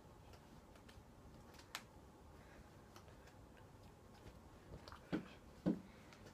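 Faint plastic clicks and knocks from handling a VForce Grillz paintball mask as its foam is fitted back in: one sharp click about two seconds in, and two duller knocks close together near the end.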